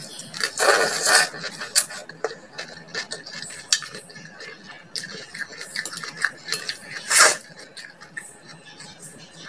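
Close-up eating sounds: slurping in mouthfuls of water spinach in coconut sauce and chewing, with two louder slurps, one about half a second in and one about seven seconds in. Chopsticks click against a ceramic bowl throughout.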